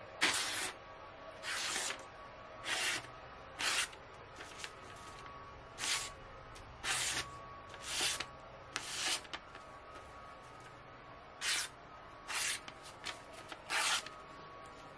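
A freshly sharpened Baccarat Damashiro kitchen knife slicing through a sheet of paper to test the edge: about a dozen short, crisp papery swishes, one for each cut.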